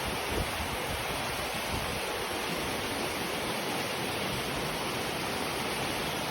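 Steady rushing water, an even unbroken wash of noise like a waterfall or fast stream.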